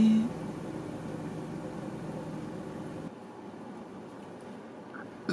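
A held, sung 'bye' cuts off just after the start, leaving a steady low hum of background noise inside a car. The hum thins out about three seconds in.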